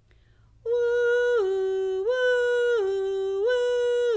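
A woman's voice imitating a two-tone ambulance siren, 'wee-woo', switching evenly between a higher and a lower pitch about every 0.7 seconds. It starts about 0.7 seconds in, after a short silence.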